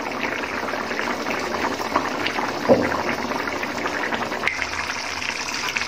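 A thick murighonto of rohu fish head and moong dal bubbling steadily in an open pot, a dense crackle of bursting bubbles. A single louder pop comes a little before the middle.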